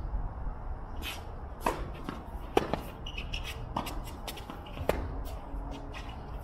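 Tennis ball impacts on the court, four sharp ones a second or so apart, with shoes scuffing and shuffling on the court surface.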